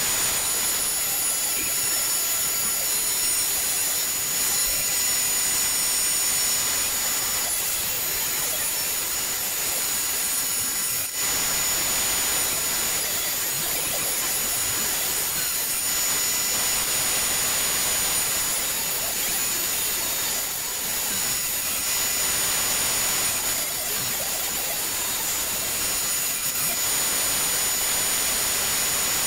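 Table saw running steadily with a high whine as jarrah and karri hardwood boards are ripped into strips.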